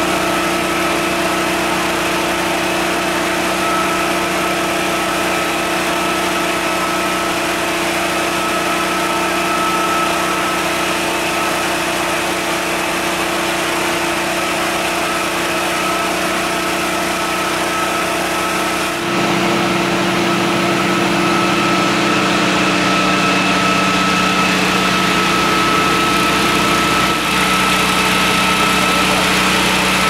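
Fire engine's engine running steadily at idle, a constant hum with steady tones. About two-thirds of the way through the drone shifts abruptly to a slightly different engine note.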